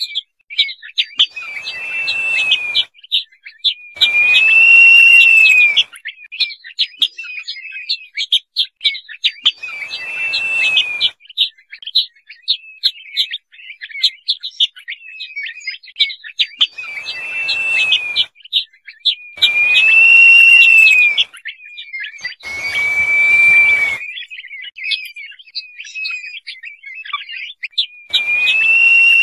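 Crested partridge (roul-roul) calling: long, plaintive whistles, each rising and then falling, repeated every few seconds, with quick short chirping notes between them. Each whistle comes with a patch of hiss beneath it.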